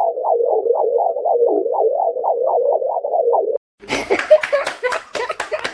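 Electronic synthesizer sound effect warbling in quick repeated pulses, about four a second, that cuts off suddenly a little after three and a half seconds. After a brief gap comes a rapid clatter of many sharp clicks and knocks.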